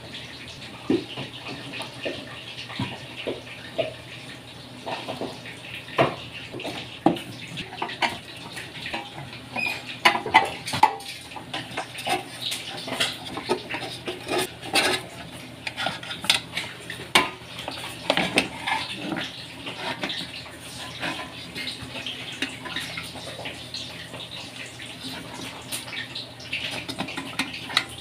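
Stainless-steel body and pan of a Tatung electric pot being handled: irregular metallic clanks, knocks and scrapes as it is lifted apart and tilted to reach the wiring, with the sharpest knocks around the middle. A steady hiss runs underneath.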